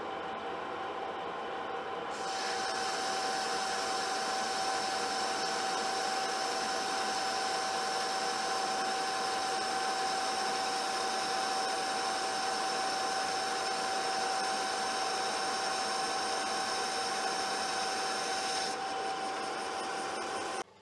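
Metal lathe running with a steady gear whine while the tool takes a heavy roughing cut in mild steel, the hot cut throwing blue chips. The cutting hiss comes in about two seconds in and stops a couple of seconds before the end, leaving the lathe's whine. Then all sound cuts off suddenly.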